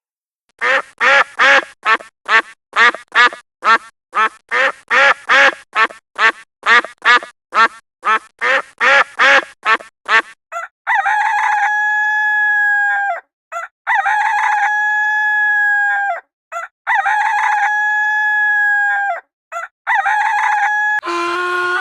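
Poultry calls. First a long run of quick, short repeated calls, about three a second, for some ten seconds. Then about four long drawn-out calls of around two seconds each, held at a steady pitch.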